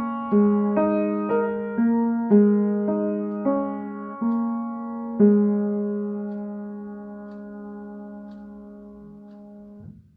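Piano improvisation: notes and chords struck about twice a second, then a final chord about five seconds in that is held and slowly dies away before cutting off abruptly near the end.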